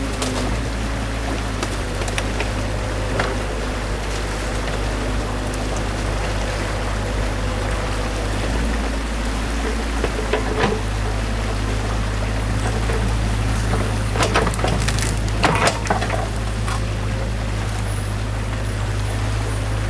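Compact excavator's diesel engine running steadily, with stream water pouring through the broken beaver dam. Several sharp knocks of wood and debris, most of them clustered about three-quarters of the way through.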